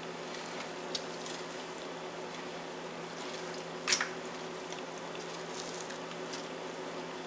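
Soft, wet squishing of hands tearing meat and skin off a rotisserie chicken, with scattered faint ticks and one sharp click about four seconds in, over a steady low hum.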